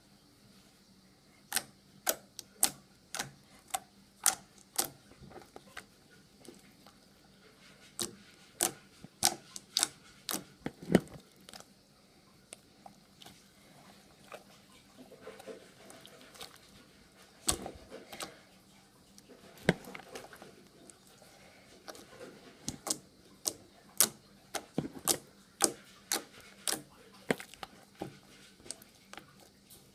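Flubber-type slime being handled, giving off irregular sharp clicking and popping sounds as air pockets burst, in quick clusters with short gaps between them.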